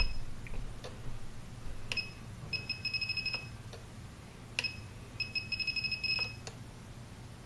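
RC transmitter beeping as its trim button is pressed and held, stepping the roll channel down toward centre. Two runs of rapid high beeps, about ten a second and each lasting about a second, come a few seconds apart, with single beeps and button clicks between them.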